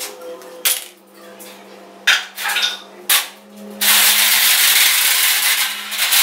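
Construction work among steel scaffolding: three sharp metallic clinks about a second apart, then a loud steady hiss lasting a little over two seconds, over a low steady hum.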